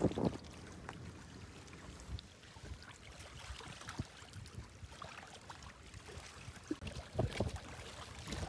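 Small waves lapping against breakwater rocks, a quiet wash with a few light ticks and knocks scattered through it.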